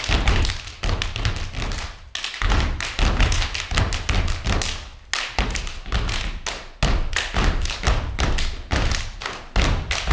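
A group step routine: many feet stomping together on a wooden stage floor in a fast, uneven rhythm of heavy thuds and sharper taps.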